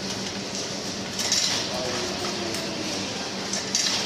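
Coins dropped one at a time into an ice vending machine's coin acceptor, clinking twice, about a second in and again near the end, over a steady low hum.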